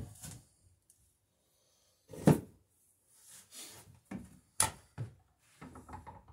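A wooden workpiece and hand tools being handled on a wooden workbench. There is a heavy wooden knock about two seconds in, a sharp knock a little past the middle, and lighter clunks and clatter around them.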